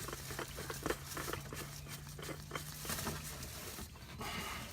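New oil filter being spun by hand onto its threads: a run of light, irregular clicks and scrapes. A faint steady hum runs underneath and stops about three and a half seconds in.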